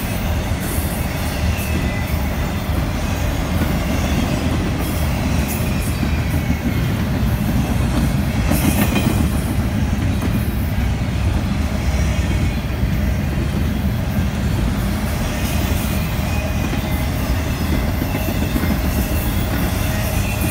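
Intermodal freight train's container and trailer cars rolling past at speed: a steady rumble and clatter of steel wheels on the rails.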